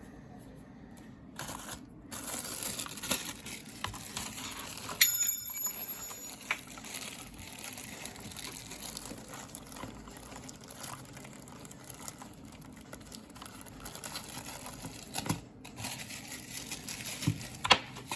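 Packaging from a mechanical keyboard's box being handled and crinkling, with a sharp click about five seconds in and a few knocks near the end.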